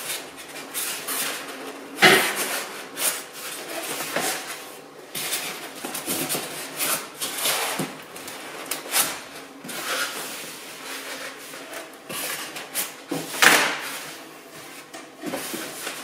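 Cardboard box being handled and opened: flaps pushed back and the box dragged and shifted, a run of irregular scrapes, rubs and knocks, with louder knocks about two seconds in and near the end.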